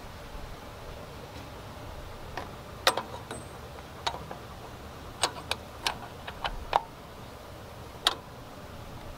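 Steel wrench clicking and clinking against the brass fittings of a diesel tractor's fuel filter head while working the bleed fitting. About a dozen sharp metal clicks come in irregular clusters, the loudest about three seconds in, near seven seconds, and about eight seconds in.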